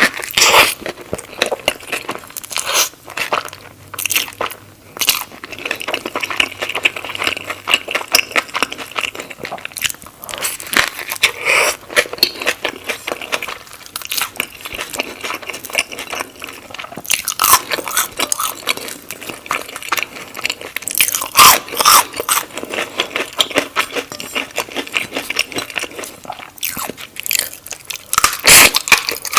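Close-miked eating: repeated crunchy bites and chewing, full of sharp crackles, with louder crunches at several points.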